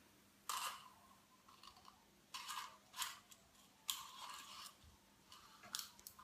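Faint scratchy rustles and small clicks of fingers handling nylon fishing line and small plastic tackle while threading a bead onto it. There are about five short bursts with near-quiet between them.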